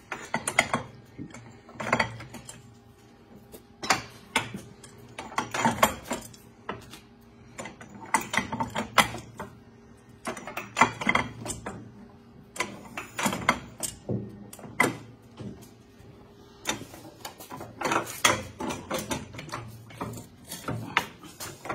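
Socket ratchet clicking in short bursts every second or two as the track-adjuster bolt on a mini skid steer's idler wheel is turned.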